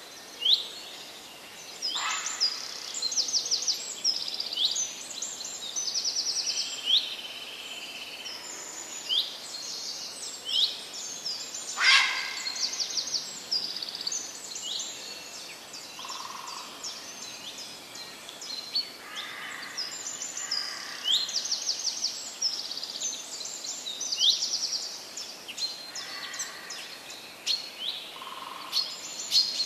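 Songbirds singing and calling: a constant run of short high chirps and quick trills, several birds overlapping.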